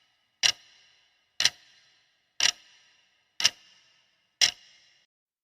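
Five sharp ticks, evenly one a second, each trailing off in a short ring.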